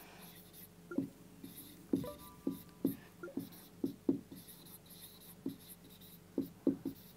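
Marker pen writing on a whiteboard: a quiet run of short taps and scratchy squeaks as the letters are stroked out.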